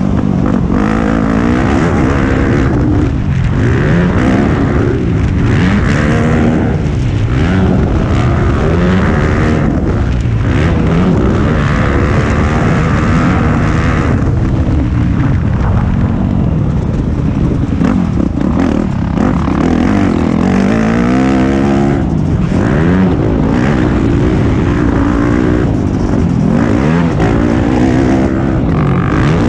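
Motocross bike engine heard on board, its pitch rising and falling over and over as the rider opens and closes the throttle through the lap.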